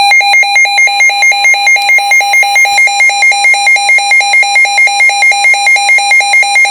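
Weather radio receiver's built-in alert alarm going off, interrupting the broadcast: a loud electronic beeping that starts suddenly and pulses rapidly and evenly, the sign that an incoming warning alert has been received.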